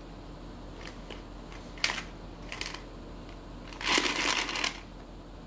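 A green plastic toy container being handled: a sharp click about two seconds in, then a short scraping, crinkly rustle around four seconds in.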